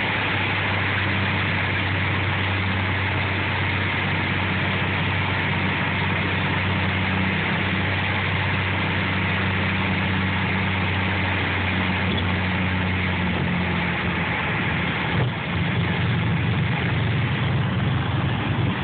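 Piston engine and propeller of a single-engine light plane heard from inside the cabin, running steadily at low power during the rollout on the runway after landing. About fifteen seconds in the sound dips briefly, then runs on a little louder.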